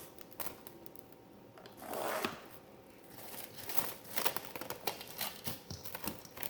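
Quiet rustling and crinkling with a short swell about two seconds in, then a run of scattered light clicks and taps from handling things in a kitchen.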